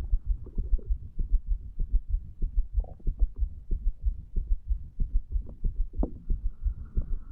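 A man's heartbeat recorded over the mitral valve area of the chest: a continuous rhythmic run of low lub-dub thumps.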